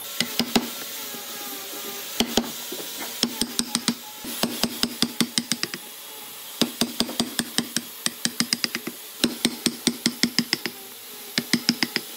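Wood chisel being struck in quick runs of sharp knocks, several a second with short pauses between, chopping out a mortise in a solid timber block.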